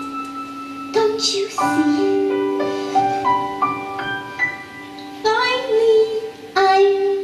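A young woman's voice singing a slow, sustained melody over piano accompaniment, with long held notes.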